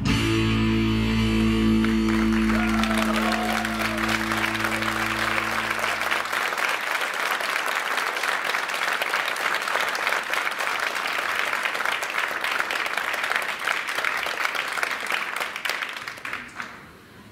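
Folk-dance music ends on a long held chord, and an audience applauds over it, the clapping carrying on for about ten seconds after the music stops and dying away near the end.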